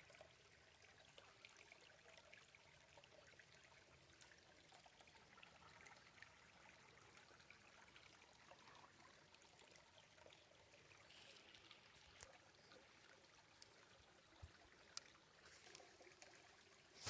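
Near silence with a faint steady rush of flowing water, broken by a few small ticks and clicks.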